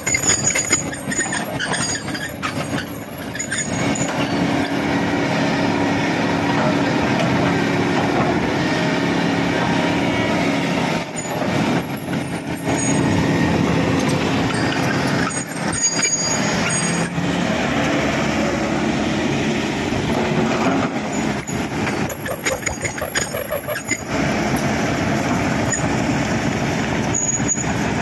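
Diesel engine of a Kobelco excavator running steadily, dipping briefly in level a few times.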